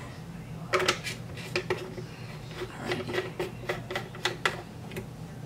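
Irregular series of light clicks and taps as plastic kitchen items are handled on a counter, over a low steady hum.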